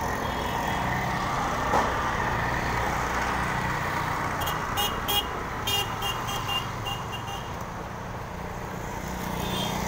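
Steady street traffic rumble of passing motor vehicles, with a run of short, sharp, high-pitched sounds in the middle.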